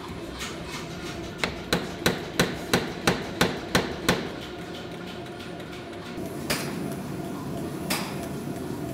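Hammer blows on hot steel: a run of about nine evenly spaced strikes, roughly three a second, then two single strikes about a second and a half apart.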